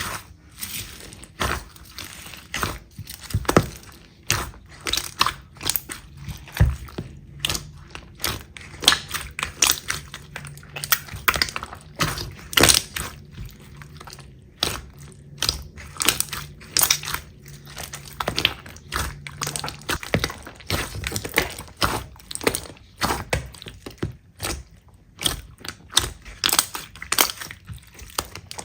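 Slime being squeezed and pressed by hand, giving a dense, uneven run of crackling clicks and pops.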